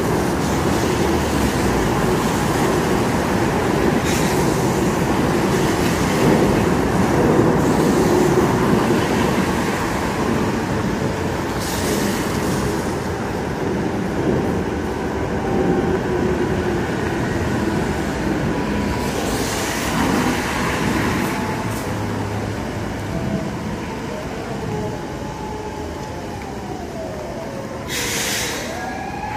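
Street traffic on a rain-wet road: a steady heavy rumble, loudest in the first third, with cars hissing past every few seconds. Near the end a Toei Arakawa Line tram rolls in and a siren starts to wail, rising and falling.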